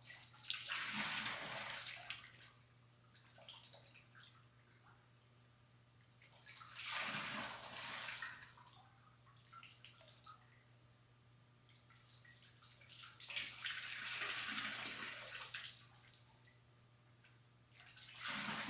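Water splashing down in four surges about five to six seconds apart as a hose-filled tipping-bird fountain fills, tips and dumps, with quieter running water between. The bird is overfilled with extra water and tips hard, which the builder calls hammering.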